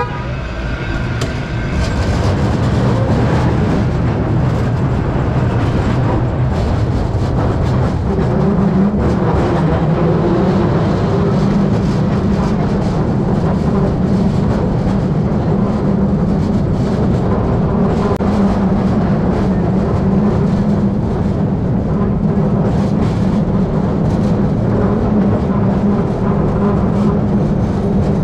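1896 Market Street Railway streetcar No. 578 running along its rails, with a steady dense rumble of wheels, motors and car body. A low hum grows stronger about eight seconds in and then holds steady.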